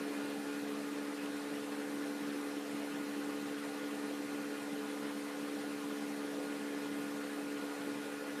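Steady low hum with a few constant tones over an even hiss, the background noise of a home screen-recording setup, unchanging throughout.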